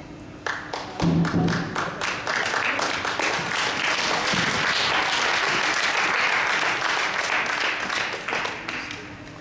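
Applause and clapping from a small crowd for about seven seconds, fading out near the end. About a second in, a pair of kettlebells is set down on the gym floor with a thud.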